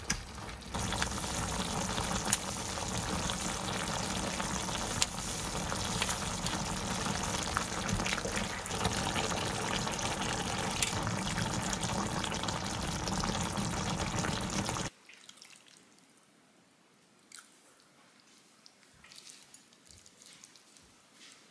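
A steady rush of running or bubbling liquid for about fourteen seconds that cuts off abruptly, followed by quiet with a few faint clicks.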